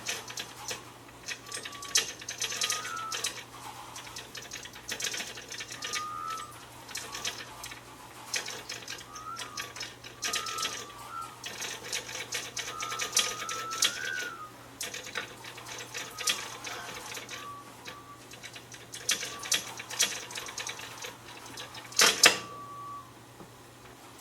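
Hand-made foley effects: rapid mechanical clicking in bursts every second or two, with short high squeaks that rise and fall in pitch between them, and one sharp loud crack near the end.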